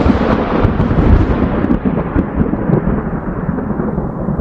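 Thunderstorm sound effect played over the hall's speakers: a loud, continuous rumble of thunder with a hiss over it, its high end slowly dying away. It marks the arrival of the rains.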